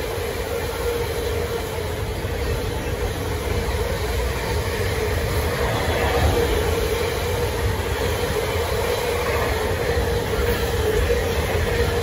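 Container wagons of a long freight train rolling past at line speed: a continuous steady rumble of wheels on rail, with a steady tone held above it.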